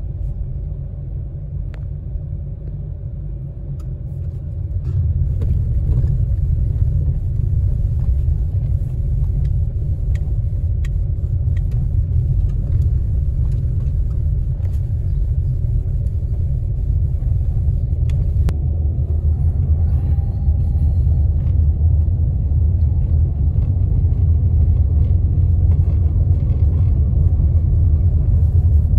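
Car driving over cobblestone paving: a steady low road-and-tyre rumble with scattered small knocks and rattles, growing louder about five seconds in.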